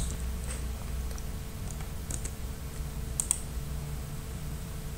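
A handful of separate computer key clicks, one right at the start and a close pair about three seconds in, over a low steady hum.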